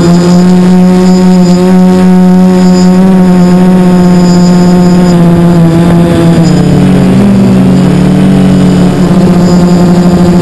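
Quadcopter's Sunnysky 2216 1250 kV brushless motors and propellers whining steadily, close to the onboard camera. About six seconds in the pitch drops and splits into two tones as the motors slow, then climbs back to a steady whine near the end.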